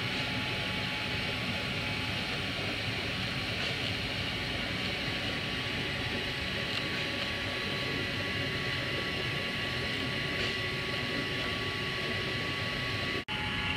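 Pneumatic chopper gun spraying resin and chopped glass strand onto a fibreglass tank, with a steady hiss of air and spray and a few constant machine tones. The sound drops out for an instant near the end.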